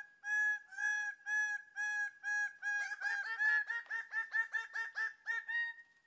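Greater bird-of-paradise giving its courtship display call: a series of loud, nasal notes, about two a second at first, speeding up to about four a second through the second half before stopping.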